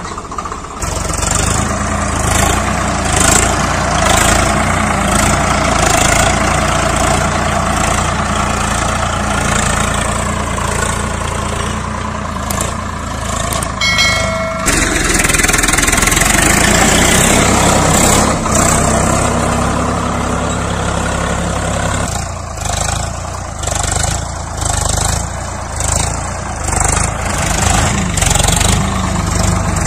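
Swaraj 855 FE tractor's three-cylinder diesel engine running steadily under load while pulling a cultivator through the soil. The sound changes abruptly about halfway through and again later.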